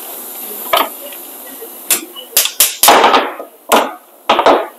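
A run of about seven sharp metallic knocks and clanks, some with a short rattle, as worn rear brake pads are worked out of a steel caliper bracket.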